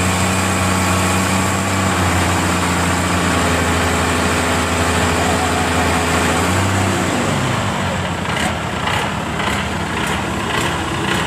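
Boat engine running steadily, then throttling down with its pitch falling about seven seconds in. After that come a rougher wash of noise and a series of short knocks.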